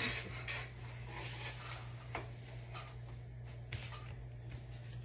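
Soft rustling and rubbing of things being handled on a table, in short scattered strokes, over a steady low electrical hum.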